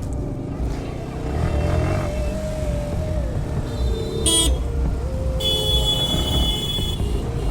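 Motorcycle riding in traffic, its engine and road noise a steady low rumble, with a short horn toot about four seconds in and a longer horn blast of about a second and a half shortly after.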